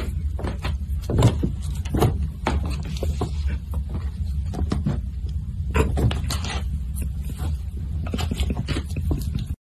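A kitten scrambling on a wooden floor and in a rope basket bed: irregular taps, scuffs and knocks over a steady low hum.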